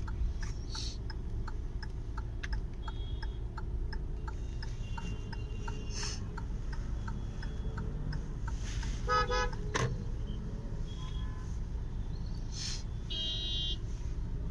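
Steady low rumble of road traffic heard from inside a car's cabin, with a rapid regular ticking for the first five seconds or so. A vehicle horn toots briefly about nine seconds in, and a higher-pitched horn sounds near the end.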